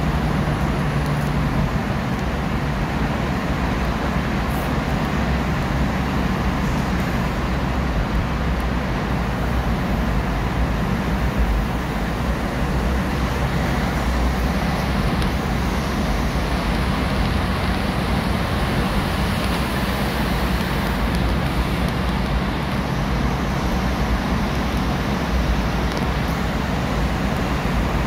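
Steady road noise heard from inside a moving car's cabin: tyre roar and engine hum at cruising speed in a road tunnel.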